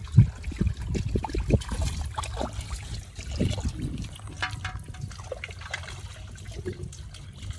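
Muddy, shallow water sloshing and splashing irregularly as men wade waist-deep and grope through it by hand for fish.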